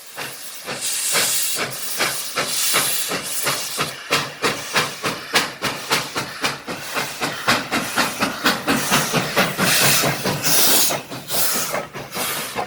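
Steam locomotive working under steam: a quick, even rhythm of exhaust chuffs, about three a second, over a continuous hiss of escaping steam.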